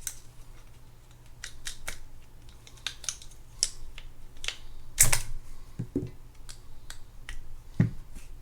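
Small metal parts of a disassembled spinning reel clicking and tapping as they are handled, irregular light clicks with a sharper knock about five seconds in.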